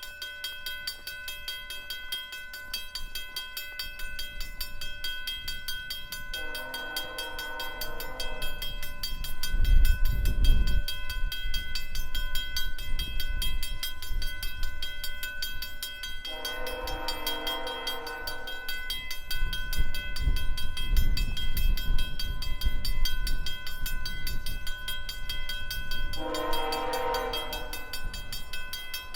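Lead locomotive of a CN freight train, a GE ET44AC, sounding its multi-chime air horn in three long blasts about ten seconds apart. A low rumble of the approaching train builds after the first blast and stays under the later ones.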